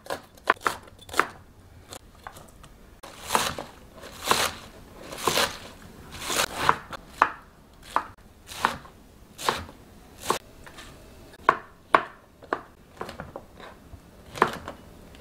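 Kitchen knife chopping vegetables on a plastic cutting board, first scallion whites, then enoki and other mushrooms, in separate, irregular strokes about one or two a second.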